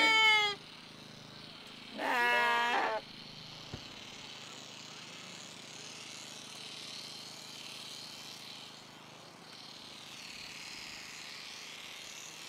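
Sheep bleating twice: one call ending just after the start, and a second, about a second long, some two seconds in.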